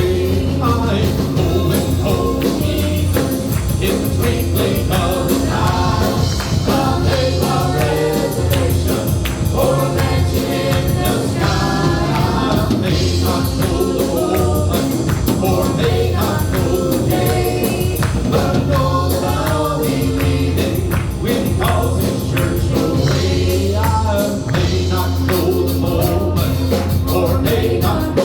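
Southern gospel music: a vocal group singing in harmony over a band with a steady bass and beat.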